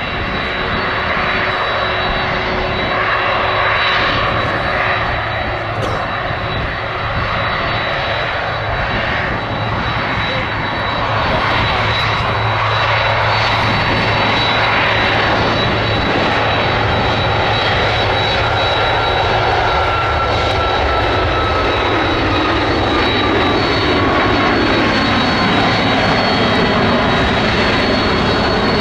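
Boeing 767's twin turbofan engines running as the jet taxis past: a loud, steady jet rumble and hiss with a thin high whine. The sound grows slightly louder as the aircraft comes closer, and in the second half a faint tone glides slowly downward.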